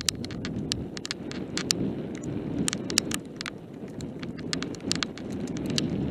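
Mountain bike descending fast on a rough gravel trail: a steady rumble of tyres on dirt and stones, with many sharp irregular clicks and rattles as stones strike the bike and the bike and camera mount shake over the bumps.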